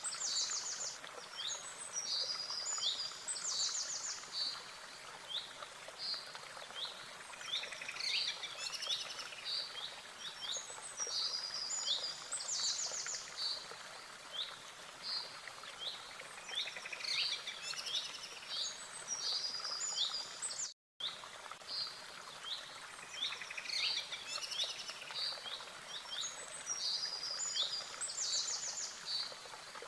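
Birdsong: chirping phrases and short rapid trills, the same pattern coming back every few seconds over a steady hiss. The sound cuts out completely for a moment about two-thirds of the way through.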